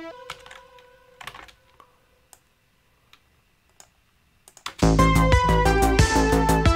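A held synth note cuts off, then a few quiet computer mouse and keyboard clicks. About five seconds in, a synthwave loop starts playing loudly: a synth lead melody over drums and bass.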